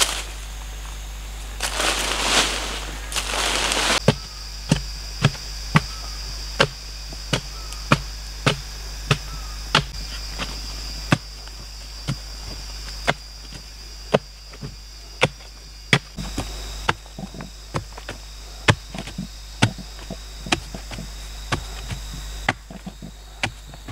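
Bamboo pole jabbed again and again into packed earth to dig a pit: a sharp thud about every two-thirds of a second, after a couple of seconds of loud scraping near the start. A steady high insect drone runs underneath.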